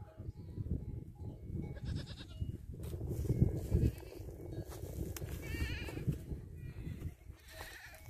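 Goats bleating a few times, short wavering calls about two seconds in, again near six seconds and once more near the end, over a steady low rumble of wind on the microphone.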